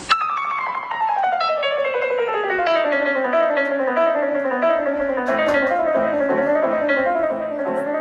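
Background music on guitar: a fast run of plucked notes sliding downward over the first few seconds, then rocking up and down around the same pitch.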